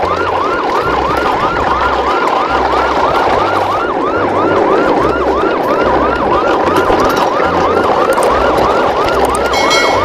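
Electronic siren wailing continuously in fast rising-falling sweeps, about three and a half a second, over a low pulsing hum. A brief high beep sounds near the end.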